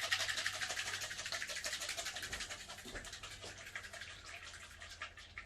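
A bottle of 3D-printer resin being emptied into the printer's resin vat: a quick, even run of glugs as the thick liquid pours out, loudest at the start and fading as the bottle empties.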